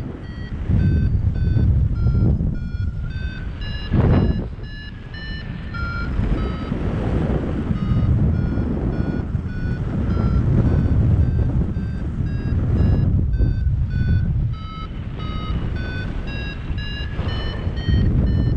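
Paragliding variometer giving its climb tone: a steady train of short beeps, about three a second, whose pitch drifts up and down and rises toward the end, the sign of the glider climbing in lift. Underneath, loud wind rushes across the microphone.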